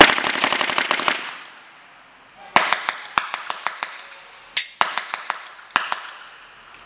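Airsoft guns firing: a rapid full-auto burst of about a second, then a handful of scattered single shots.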